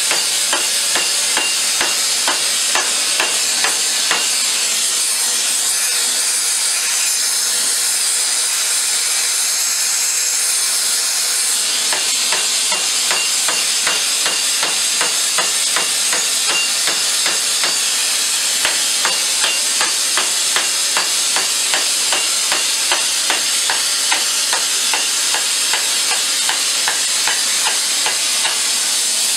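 A gas torch hissing steadily while a hammer strikes the red-hot rim of a steel pipe in quick, regular blows, several a second, forging the rim outward into a flared cup.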